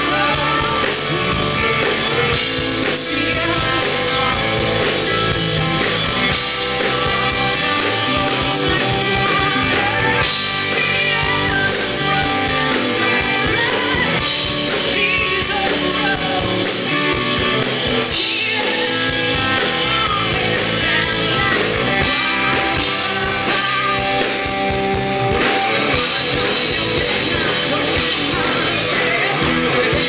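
Live rock band playing: a woman singing lead over electric guitar and drums, steady and loud throughout.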